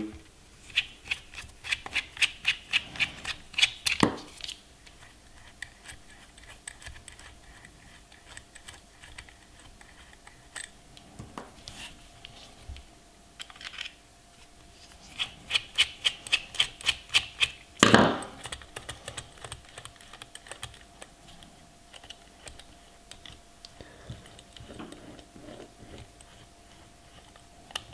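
Small metal clicks and ticks as the threaded spoke nipples are unscrewed from the end of a Brooks Plump stacked-leather handlebar grip. The clicks come in quick runs over the first few seconds and again a little past halfway, with a sharper knock about 4 seconds in and another about 18 seconds in.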